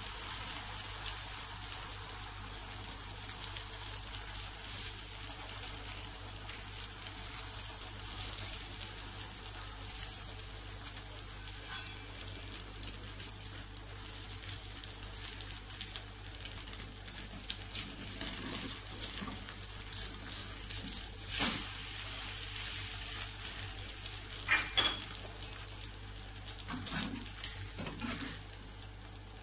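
Beaten egg sizzling in hot margarine in a nonstick frying pan, a steady hiss with fine crackle. In the second half a metal spatula clicks and scrapes against the pan several times, loudest a little past the middle and again a few seconds later.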